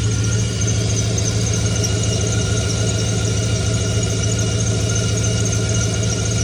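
Chevrolet LS 6.0-litre V8 idling steadily with a continuous high-pitched squeal from its accessory drive belt.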